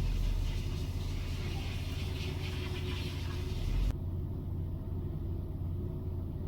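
Hyundai Elantra 1.8 four-cylinder engine running at a steady idle. The hum changes abruptly about four seconds in. The engine has a stretched timing chain and a faulty cam phaser, so its ignition timing jumps and it stumbles when revved.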